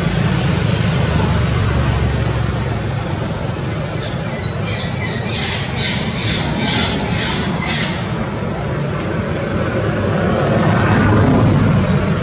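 A rapid series of about a dozen short, high-pitched squeaky animal calls, roughly three a second, starting about four seconds in and stopping near eight seconds. A steady low rumble runs underneath throughout.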